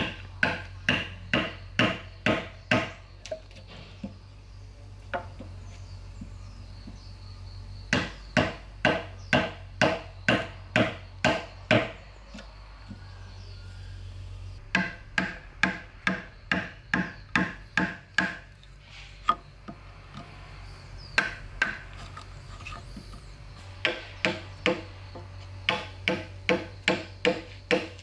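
A hammer striking in quick runs of blows, about three a second, each blow with a short metallic ring. There are five runs with pauses between them.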